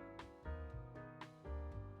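Background instrumental music with piano-like notes over a steady bass pulse.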